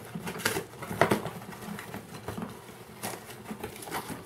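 Cardboard box being opened by hand: flaps and packing material rustling, with scattered irregular taps and knocks.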